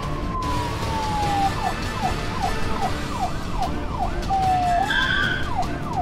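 Police car siren sound effect: a long slow wail gliding down in pitch, then a fast yelp sweeping up and down about three times a second. Near five seconds in there is a short steady tone.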